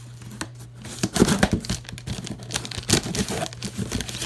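Paper crinkling and tearing in irregular bursts as a shipping box is unpacked, loudest about a second in. A steady low hum runs underneath.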